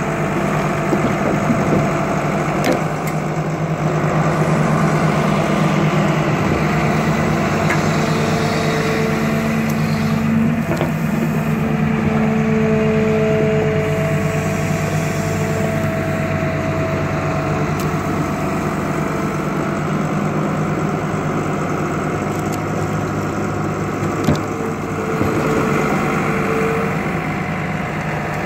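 Excavator's diesel engine running steadily while it digs and dumps dirt, with a higher whining tone that comes and goes several times.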